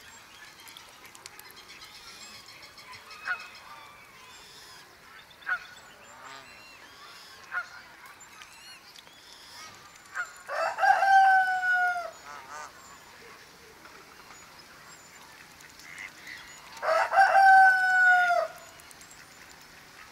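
Farmyard fowl calling: three short single calls about two seconds apart, then two loud, drawn-out calls of about a second and a half each, with small birds twittering faintly.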